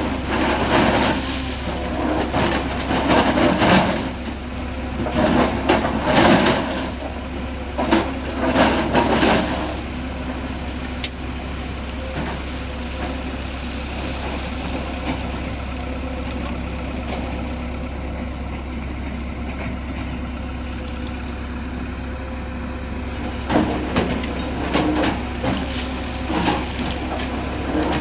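Hyundai crawler excavator's diesel engine running, with rock and soil scraping and clattering down as the bucket rakes a rocky cliff face, in bursts over the first ten seconds or so and again near the end. In between, the engine drones steadily on its own.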